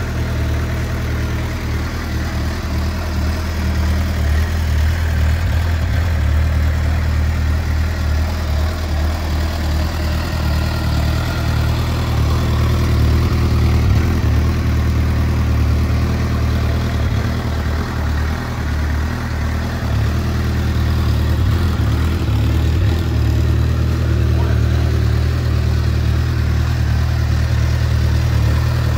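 Suzuki GSX-R750's inline-four engine idling steadily.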